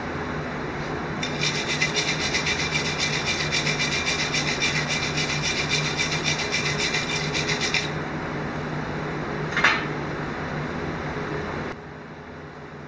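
MIG/MAG wire-feed welding arc crackling steadily for about six and a half seconds as a continuous bead is run along thin-walled square steel tube, followed by one short sharp crackle a couple of seconds later. A steady low hum under it stops shortly before the end.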